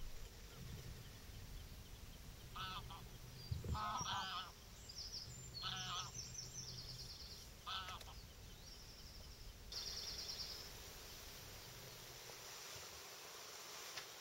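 Geese honking a few times across open water, in short separate calls over the first eight seconds or so. A small bird's fast trilling song sounds higher up, around the middle and again about ten seconds in.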